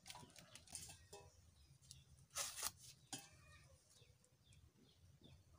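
Faint rustling and crackling as tissue paper burns in the chamber of a waste-oil burner to preheat it, with one brief louder rustle about halfway through.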